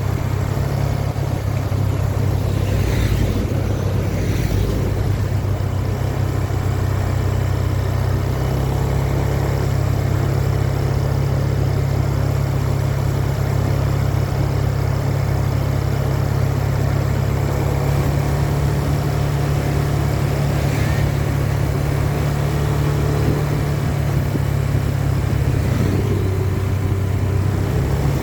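A large vehicle engine idling, a steady low drone that holds even throughout.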